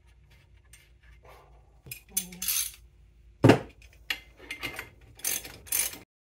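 Metal clinks and scrapes of a Wilwood four-piston brake caliper being set over the rotor and its steel mounting bolts being fitted by hand. A single sharp knock about three and a half seconds in is the loudest sound. The sound cuts off abruptly just before the end.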